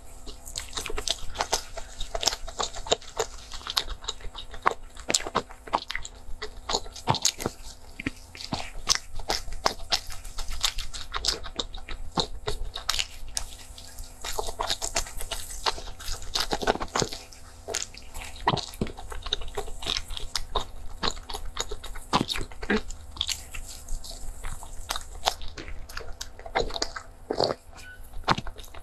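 Close-miked chewing and biting of a crumbly filled pastry with a mochi centre: dense crunching and moist mouth clicks, with a sip of milk near the end.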